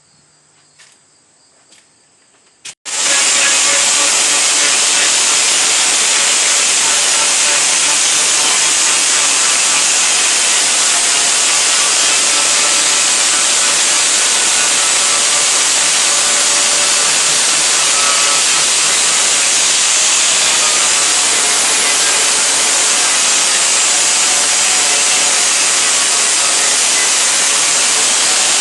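A power metalworking tool starts up about three seconds in and runs with a loud, steady hiss, working the sheet-metal roof skin of the car.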